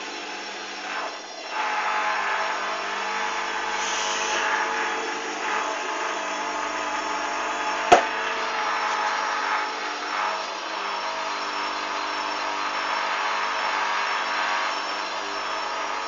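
Hoover Dynamic front-loading washing machine on its 1400 rpm final spin with a very unbalanced load: a steady motor whine and the rush of the spinning drum. A single sharp knock about halfway through.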